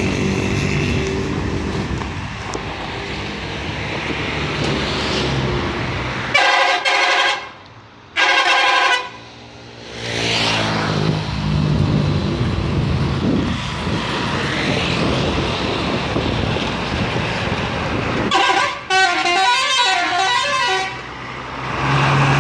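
An Indonesian bus's telolet musical horn, over the steady drone of its engine and traffic: two loud blasts about six seconds in, a second apart, then a longer warbling multi-note telolet tune about eighteen seconds in.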